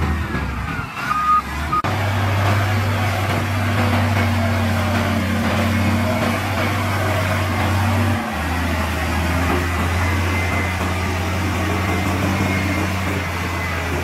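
Diesel engine of a heavy earthmoving machine running steadily with a low drone, breaking off briefly about a second in. A couple of short high beeps sound about a second in.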